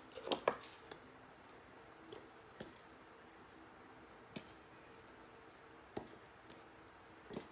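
Knife tapping on a cutting board as hot peppers are sliced, then a few sparse light clicks and taps as the knife is laid down and pepper pieces are dropped into glass canning jars.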